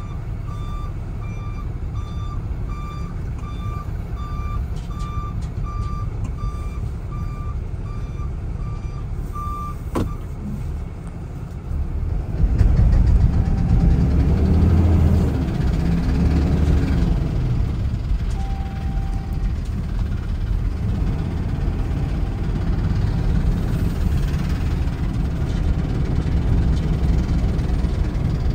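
Ram 5500 dump truck's reverse alarm beeping in a steady, even run, heard from inside the cab, stopping about ten seconds in with a click. The truck's engine then pulls away, its low drone growing louder.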